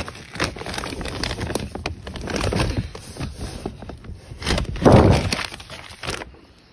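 Paper feed bag rustling and crinkling as a hand digs into it and scoops out chick feed, with a louder burst of crackling about five seconds in before it dies away.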